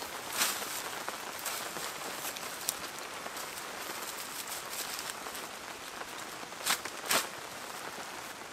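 Dry water-reed thatch rustling and crackling as bundles are handled and pushed into place, a steady crisp crackle with a few louder rustles, one about half a second in and two close together near the end.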